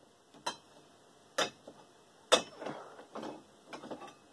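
Three sharp knocks on metal, about a second apart and the last the loudest, then a run of lighter clinks and clatter, from the metal parts of a desk fan's motor being worked apart.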